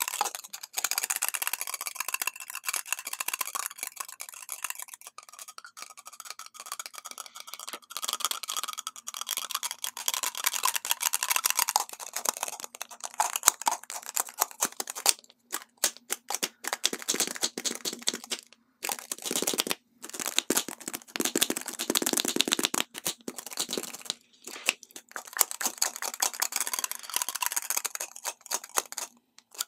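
Fingernails tapping and scratching on lipstick tubes: fast, dense runs of small clicks and scrapes, broken by a few short pauses.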